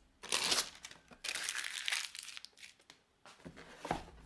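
Keyboard packaging being opened by hand: crinkling and rustling in irregular bursts, with the longest stretch from about one to nearly three seconds in.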